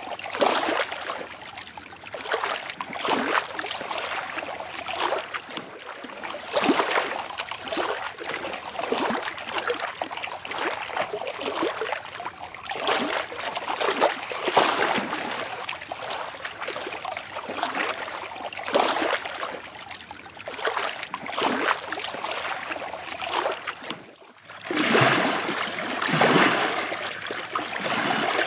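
Flowing water splashing and trickling, swelling and easing in irregular surges every second or two. It dips briefly about three-quarters of the way through, then comes back louder.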